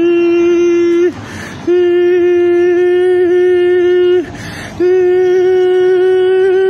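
A man's voice holding one long, steady high note through a wide grin, breaking off twice, about a second in and about four seconds in, for a quick breath before taking the note up again.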